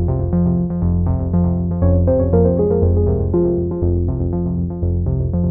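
Background music: a melody of quick, even notes over a line of lower bass notes.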